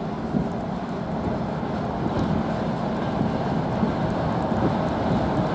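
2TE116 twin-section diesel locomotive's V16 diesel engines running as it approaches, a steady low drone that grows gradually louder.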